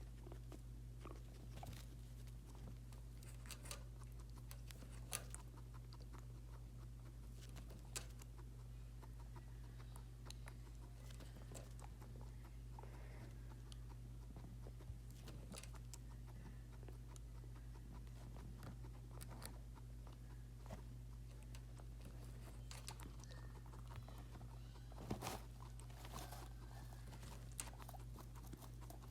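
Guinea pig drinking water: faint, irregular licking clicks and ticks, a few of them louder, over a steady low hum.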